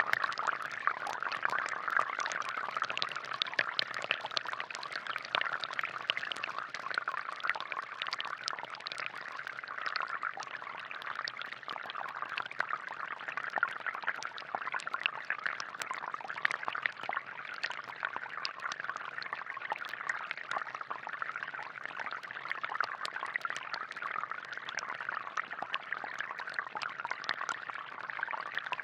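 Water from a homemade plastic-bottle air-pressure fountain splashing and trickling steadily, with many small drip and splash ticks.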